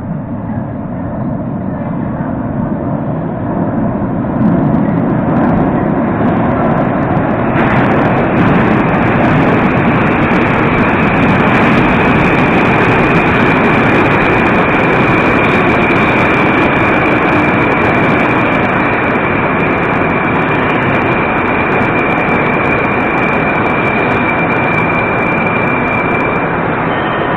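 A Moscow Metro 81-765 "Moskva" train pulling into a station: its rumble grows as it comes out of the tunnel, then the cars run past with a hiss and a steady high whine as it slows to a halt.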